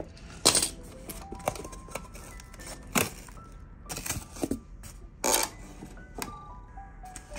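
Cardboard packaging being handled and shifted, giving a handful of sharp knocks and rustles at irregular intervals, over light background music.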